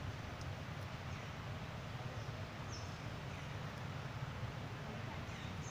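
Outdoor ambience: a steady low rumble and hiss, with two brief high chirps, one about three seconds in and one near the end.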